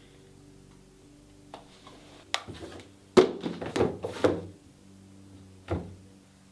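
Books handled on a wooden desk: a couple of light taps, then a quick run of thunks about three seconds in as books are shifted and set down, and one more thunk near the end.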